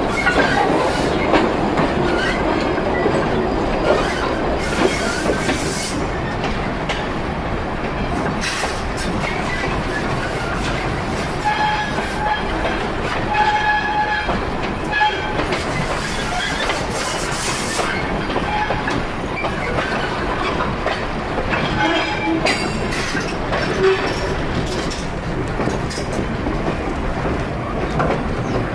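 Heritage train carriage rolling along the track: a steady rumble of wheels on rail with clicks and knocks from the joints. In the middle stretch a high tone comes and goes in short pieces for a few seconds.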